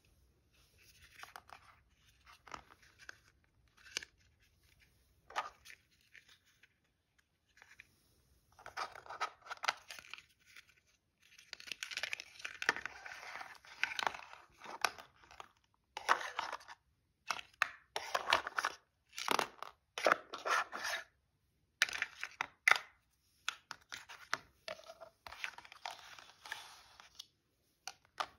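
Toy plastic pizza slices pulled apart at their hook-and-loop joins and handled on a plastic tray. Short ripping bursts come between taps and clicks of plastic. They are sparse at first and come thick and fast from about eight seconds in.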